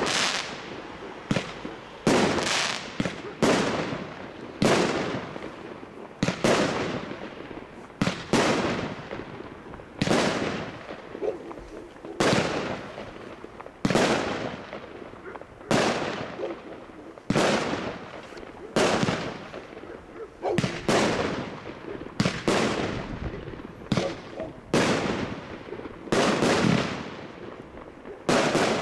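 A 25-shot consumer firework battery (cake) firing its shots in quick succession. There is a sharp bang about once a second, and each one dies away over about a second before the next.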